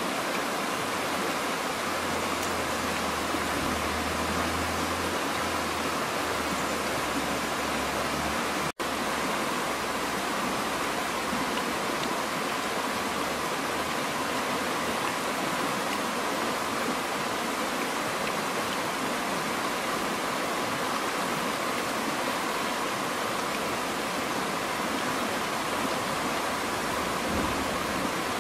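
Fast-flowing, turbulent river water rushing steadily. The sound cuts out for an instant a little under nine seconds in.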